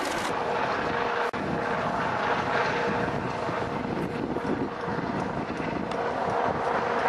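Helicopter droning overhead, heard as a steady noisy wash with a faint steady hum in it, briefly cut off about a second in.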